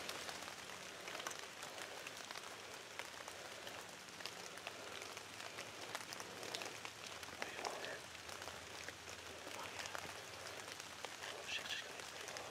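Rain falling on dry leaves and branches: a steady hiss with many small ticks of drops.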